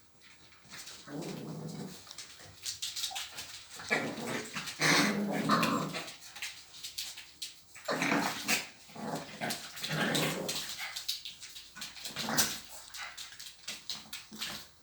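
Dogs vocalising in play, with growls and whines in irregular bursts and scattered short clicks and scuffs.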